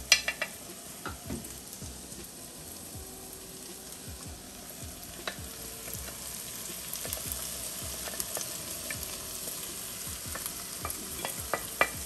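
Chopped onion, scallion and garlic sizzling in melted butter in a pan on high heat, growing a little louder through the middle. A wooden spatula makes sharp clicks scraping the vegetables off a ceramic plate at the start, and a few more clicks come near the end.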